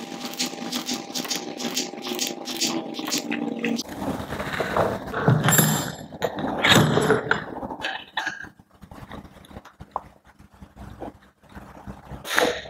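Hand tools at work on a diesel engine's timing-belt tensioner: a ratchet wrench clicking rapidly over a steady hum, both stopping about four seconds in. Scraping and handling noises follow, then a few light knocks.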